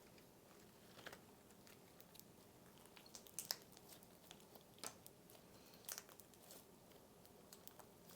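Cereal slime being pulled and squeezed by hand, giving faint, scattered crackles and crunches from the cereal pieces in it, a few a second at most, with the strongest near the middle.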